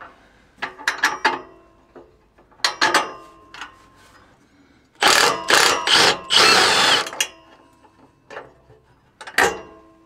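A cordless brushless power tool runs for about two seconds, about halfway through, spinning a 14 mm exhaust flange nut loose. Scattered metal clicks and knocks from the tool and hardware come before and after the run.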